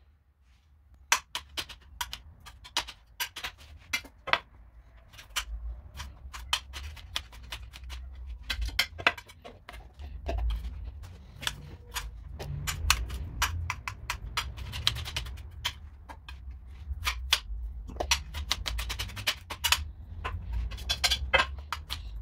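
Kitchen knife chopping on a cutting board: irregular sharp taps, some coming in quick runs of several chops.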